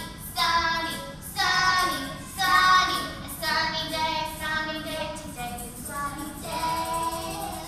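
A woman and a group of young children singing a song together, in phrases of held notes with short breaks between them.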